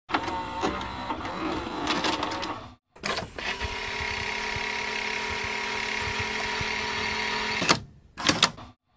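Videocassette recorder's tape mechanism at work: mechanical clatter and clicks, then a steady motor whir of the tape rewinding for about four seconds, ending in a few sharp clunks as the transport stops.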